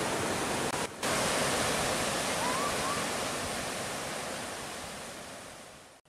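Steady rush of white water over shallow river rapids, briefly cutting out about a second in and fading away near the end.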